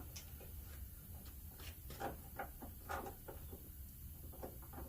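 Faint, irregular clicks and light knocks from a headlight bulb and its plastic parts being handled, a couple of them louder about two and three seconds in, over a low steady hum.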